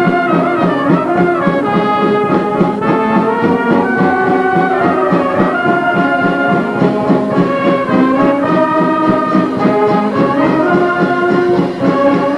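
Street band of brass and percussion playing: trumpets carry the melody over tubas, and drums and cymbals keep an even beat.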